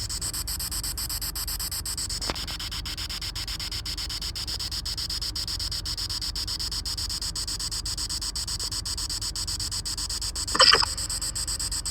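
Spirit box sweeping through radio stations: steady static hiss chopped by a fast, even ticking, with a brief louder fragment near the end.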